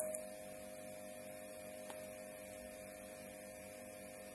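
Steady low electrical hum: background room tone.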